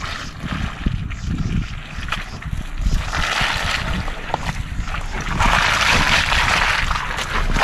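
A 2021 Ford Bronco's tyres sloshing through a mud hole, splashing mud and water. Low bumps and rumble over the first few seconds give way to a rushing hiss of spray that swells about five and a half seconds in.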